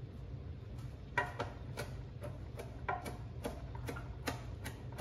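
Chef's knife slicing fresh basil on a cutting board: a steady run of light taps as the blade meets the board, about two or three a second.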